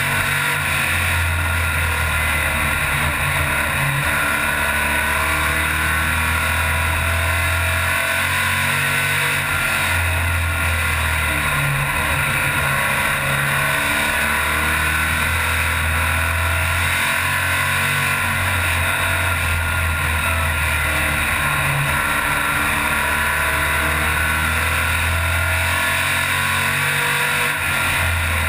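Race car engine running under load, heard from inside the cockpit, its low note swelling and easing every few seconds.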